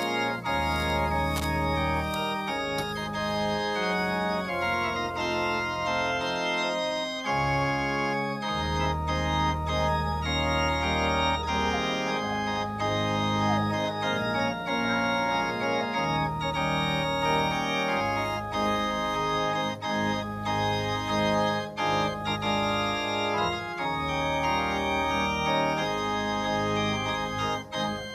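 Organ music with full held chords over long sustained bass notes, the harmony changing every second or few, played as the closing music of a church service.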